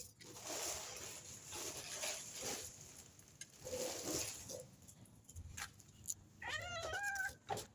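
Stray mother cat begging for food: raspy, breathy cries in the first half, then one clear meow about a second long near the end, its pitch rising and falling.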